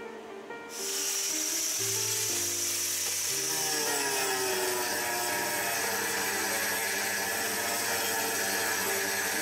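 Angle grinder with a cutting disc cutting through an aluminium computer heatsink. It starts suddenly under a second in and runs as a loud, steady, high-pitched grinding hiss, with background guitar music underneath.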